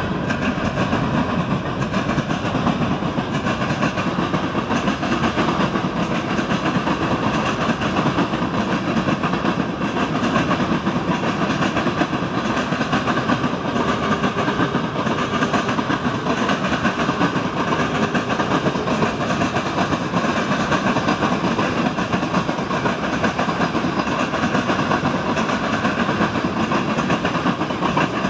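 Freight train cars rolling past at speed, a steady run of steel wheels on the rails with no break.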